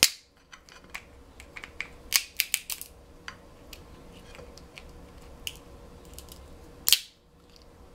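Snow crab claw cracked in a metal crab cracker: sharp crunching clicks of shell breaking. There is a crack at the start, a quick cluster of cracks about two seconds in, small clicks after, and one loud crack near the end.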